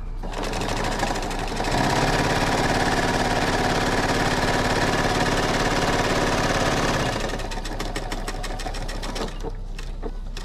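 Pfaff computerized sewing machine stitching a seam through layered flannel squares. It runs up to a steady speed about two seconds in, then slows and drops lower about seven seconds in.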